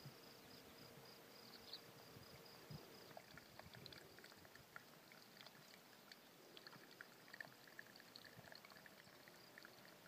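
Faint outdoor ambience: soft trickling and dripping of shallow pond or stream water, as scattered small splashes from about three seconds in, over a steady high insect trill.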